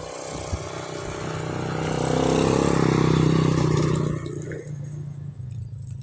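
A motor vehicle passing close by on the road. Its engine and tyre noise swell to a peak about halfway through, then fade as it moves away, the engine pitch dropping.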